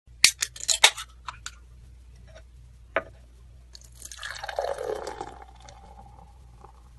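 Several sharp clinks and clicks, then liquid poured into a glass for about two seconds, fading out near the end.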